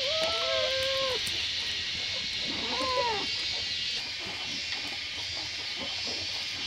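A few short pitched animal calls: two overlapping near the start and one rising and falling about three seconds in, over a steady high hiss.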